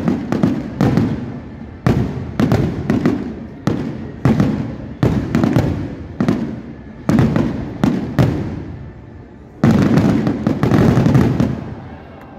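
Fireworks display: aerial shells bursting one after another, a loud bang every half second to second, each trailing off. About ten seconds in they come as a dense barrage, then thin out near the end.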